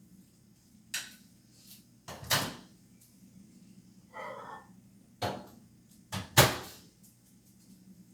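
A series of sharp knocks and clunks, about five in all, like a cupboard door and objects being handled, the loudest a quick double knock about six seconds in. A short squeak sounds about four seconds in.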